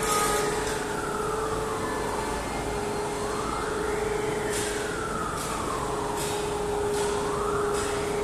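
Wailing warning siren in a steel rod mill, its pitch rising quickly and falling slowly in a cycle of about four seconds, over a steady machinery hum. Short clanks come about once a second in the second half.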